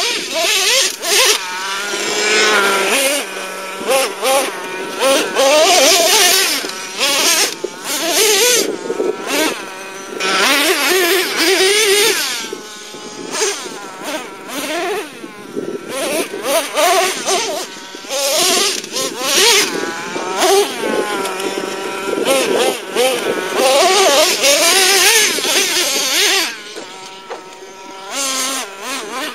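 Traxxas T-Maxx nitro RC truck's modified 3.3 two-stroke glow engine with a drilled-out resonator pipe, revving hard up and down over and over as the truck is driven, its high buzzing pitch sweeping up and falling back every second or two.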